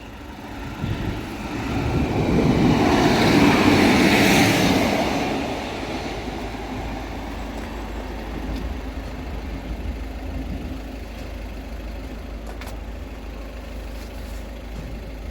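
A road vehicle driving past, its tyre and engine noise swelling and fading over a few seconds, then a steady low traffic rumble.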